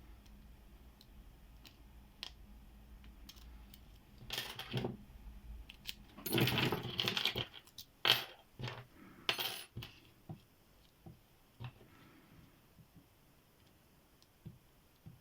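Metal clinking and jangling of small padlocks and keys being handled, with a run of clatter between about four and ten seconds in and scattered light clicks around it.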